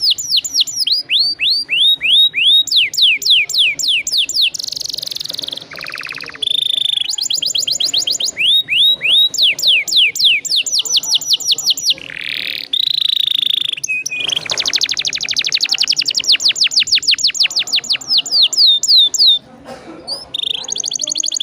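Domestic canary singing long rolls: rapid trills of repeated falling notes, the speed changing from phrase to phrase, with a very fast trill in the second half and a short break near the end.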